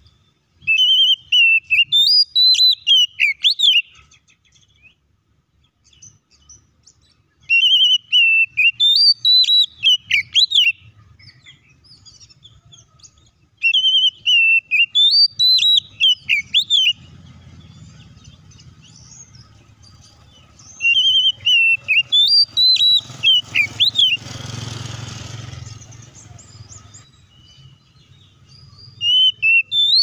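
Oriental magpie-robin singing: a loud whistled phrase of about three seconds, a held note followed by quick rising and falling notes, repeated four times about every six to seven seconds and starting again near the end. A brief rush of noise comes during the fourth phrase.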